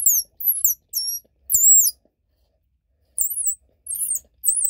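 A lemongrass squirrel call, sucked through a split lemongrass stalk held at the lips, giving short, very high-pitched warbling squeaks that glide up and down. There are about four squeaks, a pause of about a second, then three more.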